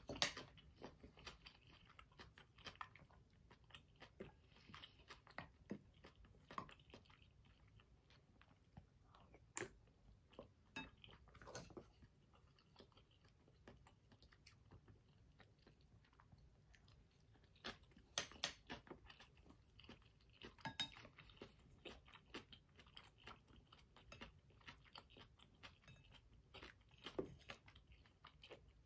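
Close-miked chewing of mouthfuls of soup with dumplings and rice cakes, with wet mouth sounds. Scattered soft clicks and a handful of louder sharp clicks and taps come at irregular moments.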